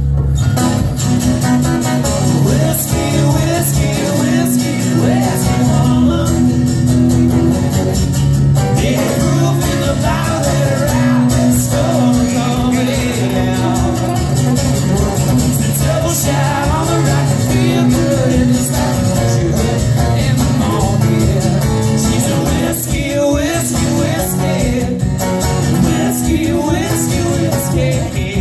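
Live country music played on a strummed acoustic guitar and an electric guitar, with melodic lead lines weaving over the strumming.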